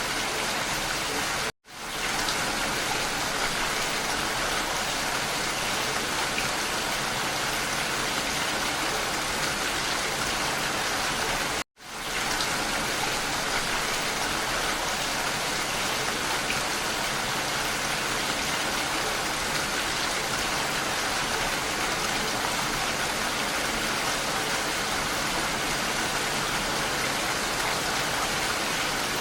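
Steady rain falling, an even dense hiss. It cuts out to silence twice for a moment, about one and a half and eleven and a half seconds in, and fades straight back in.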